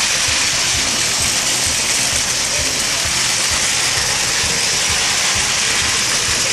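Plarail toy train's small electric motor and gearbox running steadily with a continuous high whir and a rattle of gears. The clutch has just been repositioned so the drive turns freely.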